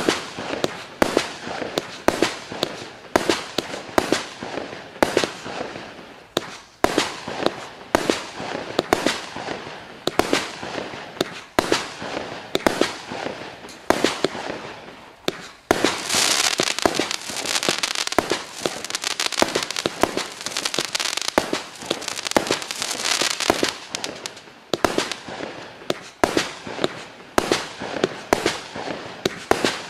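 Klasek Šašek (Clown) 49-shot, 20 mm fireworks battery firing: sharp shots follow one another at about two a second. For several seconds past the middle the shots run together into a dense, continuous crackle, before the separate shots return.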